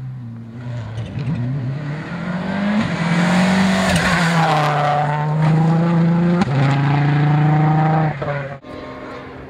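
Mitsubishi Lancer WRC rally car's turbocharged four-cylinder engine running hard at speed. The pitch rises as it builds to full throttle, with a sharp gear change about six and a half seconds in. The sound drops away abruptly near the end.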